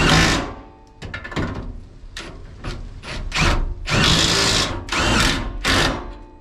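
Cordless impact wrench running in about seven short bursts, one lasting about a second near the middle, as it runs in the bolts holding a car's front subframe to the body.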